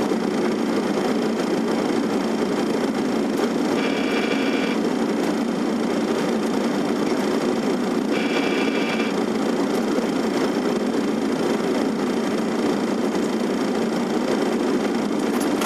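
Steady cockpit noise of an airliner on final approach: the rush of airflow and engine noise. Two short electronic tones sound about four seconds apart, each just under a second long.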